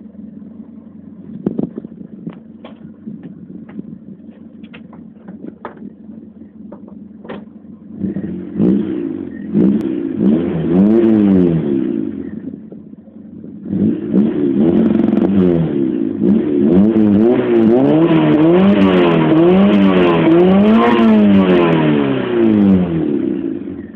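Honda Civic 1.3 engine idling steadily with a few sharp clicks. It is then revved up and down repeatedly in quick rises and falls, drops back briefly, and is revved again many times before settling near the end.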